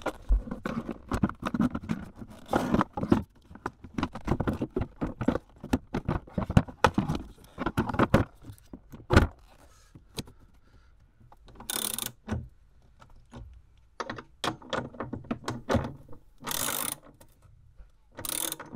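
Knocks, clicks and scrapes of a plastic battery box being set down into a metal floor recess and handled into place. Later come two short bursts of rapid ratcheting, about a second each, as a socket ratchet tightens the box's 13 mm mounting bolts.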